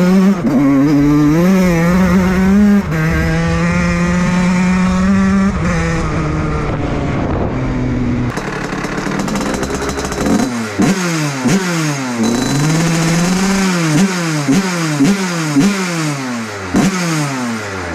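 Fantic TPR motorcycle engine running at a steady pitch for several seconds, then revved up and down repeatedly, about once a second, in the second half.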